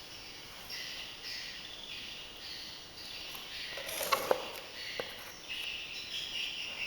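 Insects chirping in short repeated bursts, with a few sharp knocks about four and five seconds in; no drill running.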